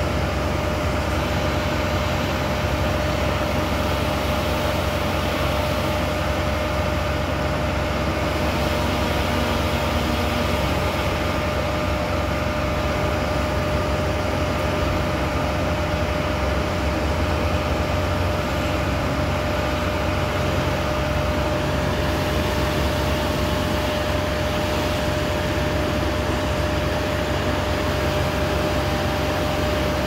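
Engine-driven tree-service machinery, a wood chipper and truck engine, running steadily at constant speed: a continuous drone with a steady whine over it.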